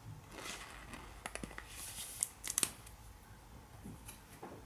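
Trading card being slid into a thin clear plastic penny sleeve: faint scraping and crinkling of the soft plastic, with a few sharp ticks between about one and three seconds in.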